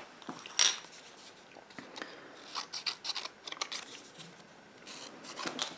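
Strips of cardstock being handled and rubbed against a card on a craft mat: a scatter of short, light paper scrapes and taps.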